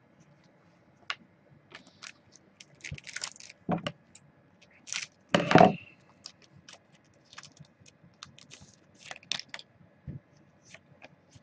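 Trading cards and foil card packs being handled on a table: scattered light clicks, taps and short rustles as cards are shuffled and slid, the loudest a brief rustle about five and a half seconds in.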